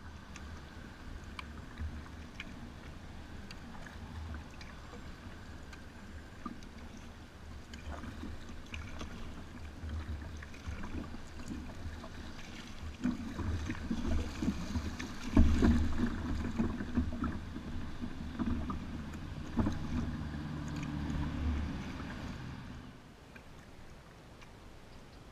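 Kayak running through choppy, rippling river water: water slapping and rumbling against the hull, with scattered small knocks. It grows louder for several seconds in the middle and stops abruptly near the end.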